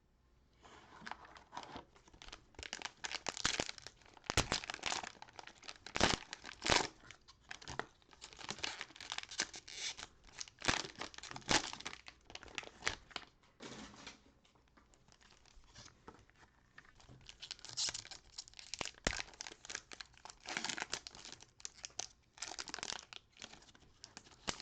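Cellophane wrapper of a 2020-21 Panini Donruss Optic basketball cello pack being torn open and crinkled, in repeated bursts of crackling with sharp ticks and a pause partway through.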